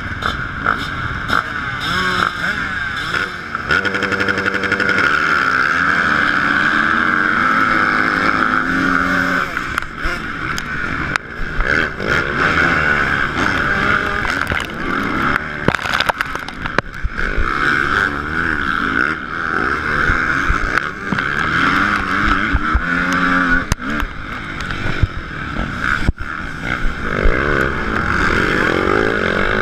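Dirt bike engine at hard throttle, revving up through the gears with other motocross bikes running close by, heard from a handlebar-mounted camera; a few sharp knocks cut through.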